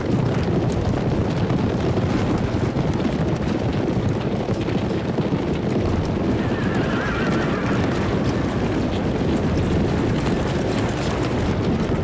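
A large troop of horses galloping: a dense, steady rumble of many hoofbeats, with a horse whinnying briefly about halfway through.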